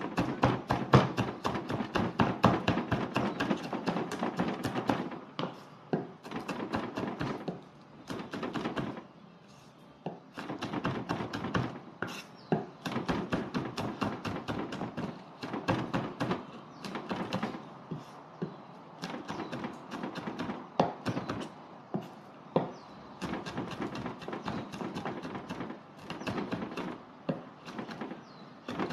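Knife rapidly chopping red chillies on a wooden cutting board: quick knocks of the blade on the board in fast runs, broken by short pauses.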